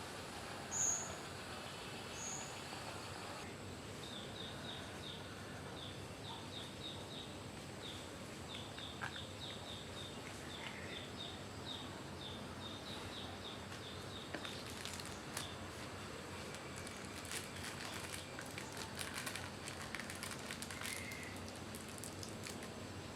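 Steady outdoor background hiss with a bird calling: two high chirps near the start, then a long run of short, quick repeated notes for about ten seconds. In the last third, a scatter of clicks and rustles.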